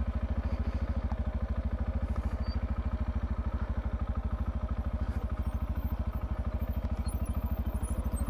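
Macbor Montana XR1 125cc single-cylinder four-stroke engine running at low revs with a steady, rapid, even pulse, held off the throttle while the trail bike goes down a steep slope.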